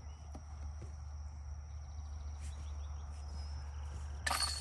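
A steady high-pitched insect drone, like crickets, over low outdoor rumble. Near the end comes a short metallic jangle: a disc golf putt striking the basket's chains.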